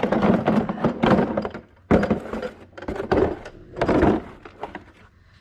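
Irregular thunks and clattering of a stiff, aged car part being worked loose and pulled off by hand, with a sharp knock about two seconds in.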